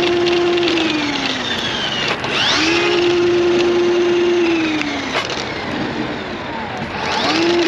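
Milwaukee M18 FUEL drain snake's motor run in short trigger bursts. It winds down about half a second in, spins up again about two seconds in, runs steady for about two seconds and winds down, then spins up once more near the end. It is being test-run because its auto-feed is not locking.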